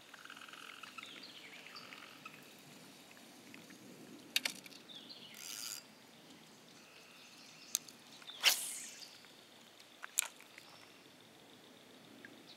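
Scattered small splashes and clicks on calm water from a small topwater Rapala lure being twitched across the surface. The loudest is a sharp splash about eight and a half seconds in.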